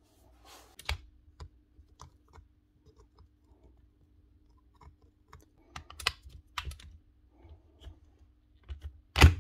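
Scattered light clicks and taps of a screwdriver and hands working in a new drill chuck, with a louder sharp knock near the end.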